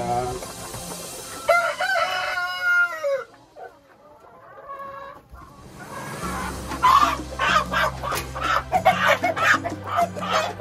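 Chickens in a coop. A rooster crows once about two seconds in, its call sliding down at the end. From about six seconds the flock clucks and squawks in quick, repeated calls.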